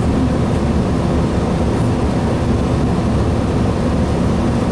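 Cummins ISL 280 inline-six diesel of a 2007 Gillig Phantom transit bus running with a steady low drone and a faint constant hum, heard from inside the passenger cabin.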